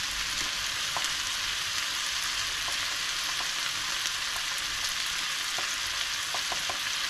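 Chopped vegetables and chickpeas sizzling steadily in oil in a frying pan, with a few faint light clicks scattered through.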